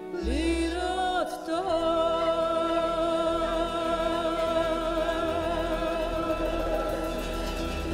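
Live band music. A short rising phrase in the first second and a half, then one long note held with vibrato over the accompaniment.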